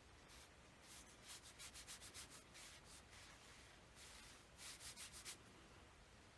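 Faint scratchy strokes of a paintbrush's bristles rubbing across watercolor paper. They come in two quick runs of several strokes each, about a second in and again near five seconds.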